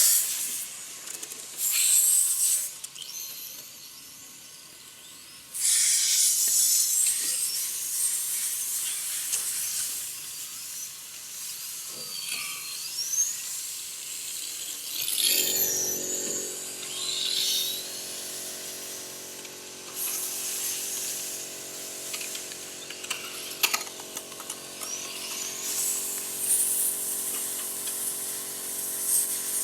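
Remote-control racing cars running on a track, their motors giving a high-pitched whine that swells and fades as they pass, again and again. About halfway through, a steady humming drone sets in underneath and continues.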